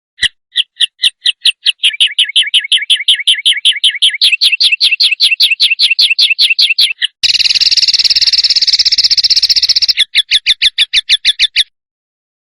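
A songbird giving rapid, harsh repeated notes ('tembakan kasar'). The notes start slowly and speed up to about five a second, break into a dense buzzing trill for about three seconds, then return as rapid notes and stop abruptly.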